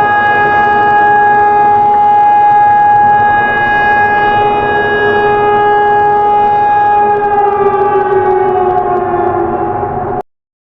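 Civil defense siren sounding one steady tone, then winding down in pitch near the end and cutting off suddenly.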